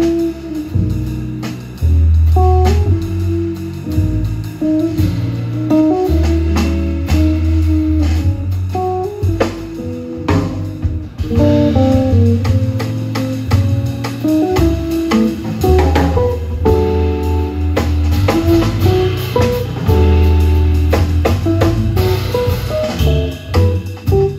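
Live jazz trio playing: an archtop guitar carries a melodic line over long, low double bass notes and a drum kit keeping time on cymbals and drums.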